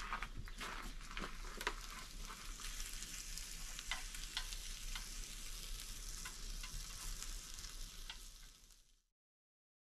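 Food sizzling in a frying pan on a portable gas camping stove, with scattered sharp clicks of a utensil stirring in the pan. The sizzle fades out near the end.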